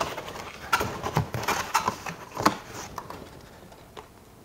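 A cardboard mailing box being handled: quick knocks, taps and rustles of cardboard for about two and a half seconds, then it goes quieter.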